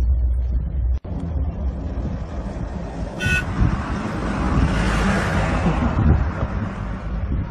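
A military light utility vehicle gives one short horn toot about three seconds in, then drives close past, its engine and tyre noise swelling and fading away.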